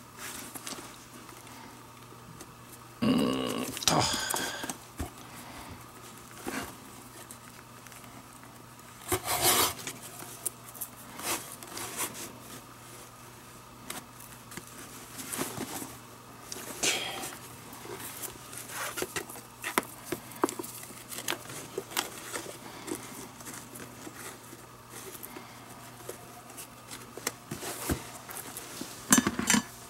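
Leather lace being pulled through the lacing holes of a catcher's mitt during relacing: scattered rubbing and zipping scrapes of lace on leather, with louder pulls about three and nine seconds in.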